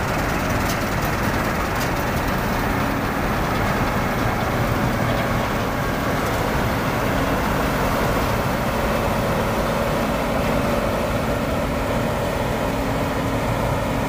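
New Holland 8070 combine harvester running steadily while it cuts and threshes rice: a constant diesel engine drone mixed with the whir of the cutter and threshing machinery.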